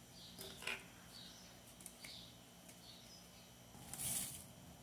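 Powdered disinfectant essence being tipped from its sachet through a paper funnel into a plastic bottle: faint soft rustles and taps, with a brief louder hiss about four seconds in.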